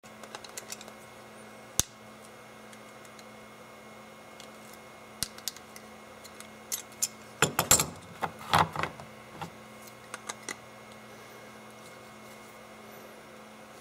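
Sharp plastic clicks and cracks as a 3D-printed plastic ratchet wrench is tapped and cranked with pliers, with a burst of louder cracks near the middle.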